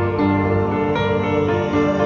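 Instrumental background music with held notes and no singing.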